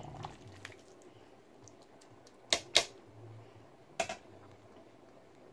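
Three short sharp clicks over quiet room tone: two close together about halfway through and a third a little over a second later.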